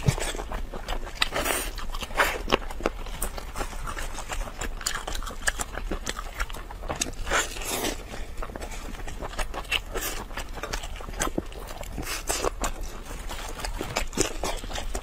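Close-miked eating: a person biting, tearing and chewing sauce-covered meat held in gloved hands, with many irregular sharp wet clicks.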